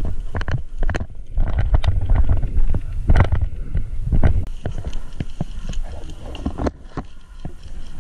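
Irregular footsteps on a sandy dirt trail and brush rustling against the body, over a low rumble of wind on the microphone. The rumble is louder in the first half.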